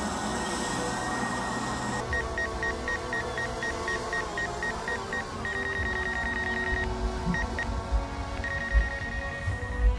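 A steady rushing noise for about two seconds, then high electronic beeping over sustained musical tones: runs of quick short beeps, about five or six a second, alternating with a held beep tone.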